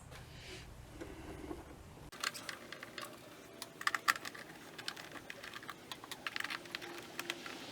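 Scattered light clicks and taps of small screws and a screwdriver being handled while door-panel hardware is taken out. The clicks come irregularly from about two seconds in, bunching up around the four-second mark.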